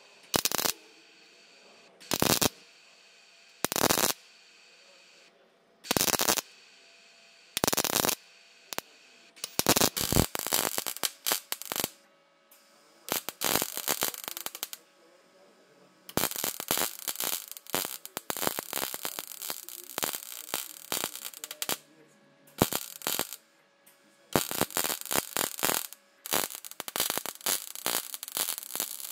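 MIG welder arcing on a steel helmet shell. Short crackling tack welds come about every two seconds at first. From about a third of the way in they give way to longer runs of continuous arc crackle.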